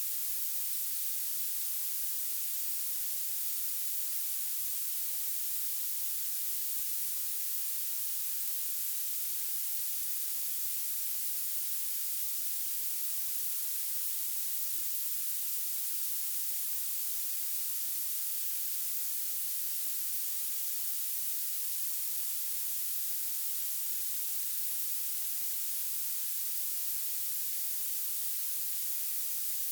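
Violet noise: a steady, unbroken hiss with its energy piled into the highest frequencies and almost nothing in the bass.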